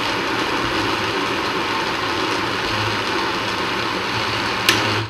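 Countertop blender motor running steadily as it churns a thick, gelatinous hydrogen-peroxide and xanthan-gum paste, then cutting off abruptly near the end, just after a short sharp click.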